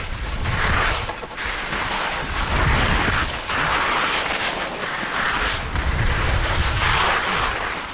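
Skis scraping and carving across the snow through a series of turns, a hiss that swells with each turn about every second or two, over wind rumbling on the camera microphone.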